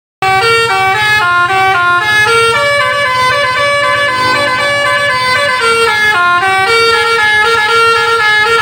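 Tour bus's 'basuri' telolet musical horn playing a tune: a quick run of changing notes, several sounding together, with the bus engine running underneath.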